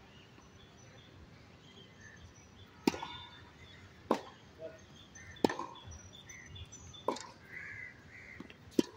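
Tennis ball being hit back and forth: five sharp knocks of racket strikes and bounces on the hard court, about every second and a half.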